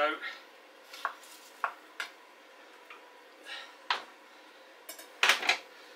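A large kitchen knife and a metal roasting tin knocking: a few light taps and short scrapes of the blade against the tin as chopped cabbage is pushed in, then a louder clatter of metal near the end.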